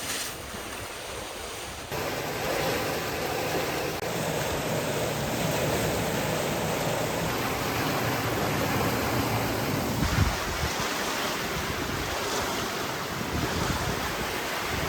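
Wind buffeting the microphone over water rushing along a sailboat's hull under way, a steady noisy wash that steps up abruptly about two seconds in and changes again about ten seconds in.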